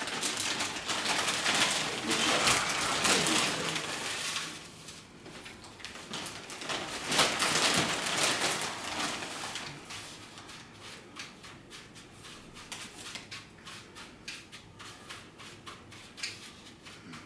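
Birdcage parts being handled and fitted: two stretches of rustling and scraping, then a quick irregular run of small clicks and taps.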